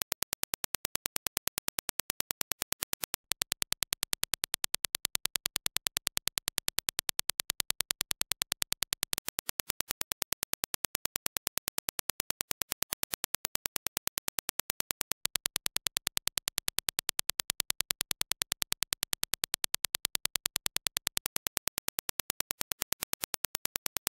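A Dirac impulse test signal: a rapid, evenly spaced train of sharp clicks, several a second. The clicks get louder for about six seconds twice, a few seconds in and again about halfway through.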